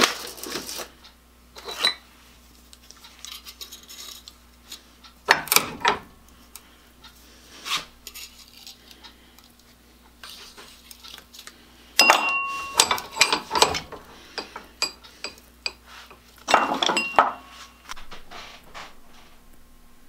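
Pliers clicking, scraping and clinking against brass vise jaws while breaking open the molded casing of a power-cord choke built on a powdered-iron core. The sharp clicks come in several short flurries, over a faint steady hum.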